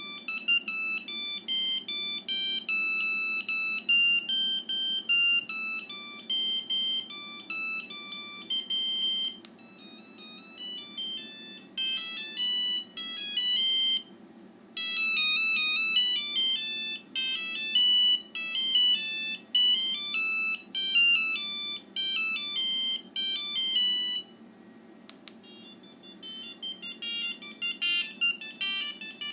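NEC DB4000 mobile phone playing its built-in ringtones through its speaker: electronic beeping melodies, one tune after another, with short quieter breaks where one ringtone gives way to the next.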